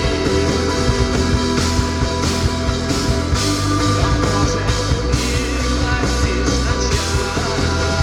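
Rock band playing live: an instrumental passage with no singing.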